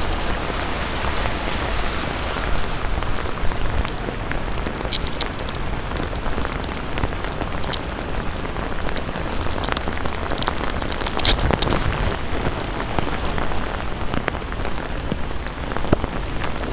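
Steady downpour of rain, with scattered sharp drop strikes, falling on a ripstop nylon rain poncho.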